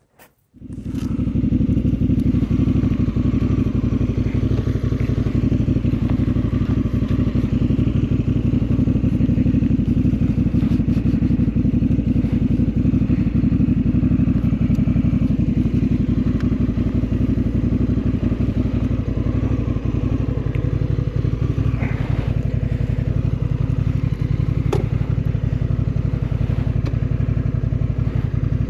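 Motorcycle engine idling steadily while the bike stands still, with a couple of faint clicks late on.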